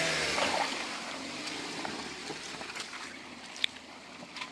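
A car engine running under a steady rush of water as a car drives through a shallow river ford. There are a few sharp clicks or knocks.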